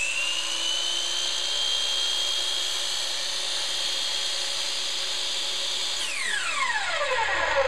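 Electric miter saw running at full speed with a steady high whine as its blade is lowered into a square wooden post. About six seconds in it is switched off and the whine falls steadily in pitch as the blade spins down.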